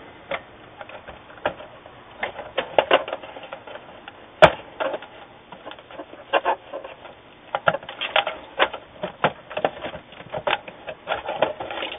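Irregular clicks, knocks and rattles as a motherboard is wiggled loose from a Dell Optiplex 745's metal desktop case and worked past its cables, with one sharp click about four and a half seconds in.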